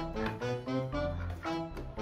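Background music: a light melody of short notes over a bass line.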